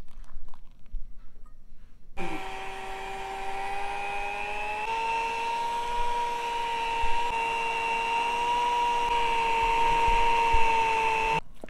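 Small electric kitchen motor running steadily while the pizza dough is mixed and kneaded. It starts abruptly about two seconds in, its pitch steps up slightly partway through, and it cuts off just before the end.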